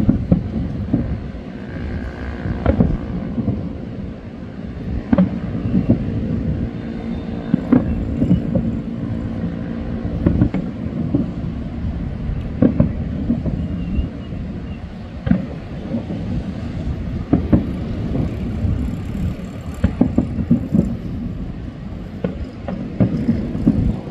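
Distant aerial fireworks bursting: a series of dull booms and cracks, irregular, every second or two, over a steady low rumble.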